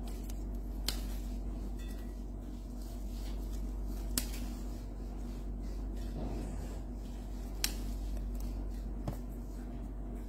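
Steady low hum with four short, sharp light ticks a few seconds apart, from leaves being dropped into a stainless steel mug.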